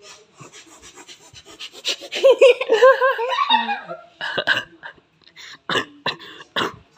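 A child giggling in a quick run of short bursts, the loudest part of the sound, about two seconds in. Around it are rapid rubbing and squelching noises from cupped palms pressed together to make fart noises.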